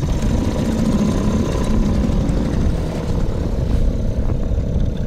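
Small outboard motor running steadily under way, pushing a small boat through a light chop, with wind buffeting the microphone.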